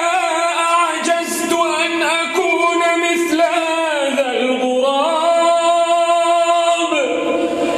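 A man's voice reciting the Quran in slow, melodic tajweed chant, drawing out long held notes that slide in pitch, with a dip to a lower note near the middle.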